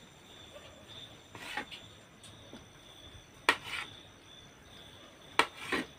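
Kitchen knife slicing through sponge cake on a plate, its blade knocking against the plate about four times, the loudest knock about halfway through.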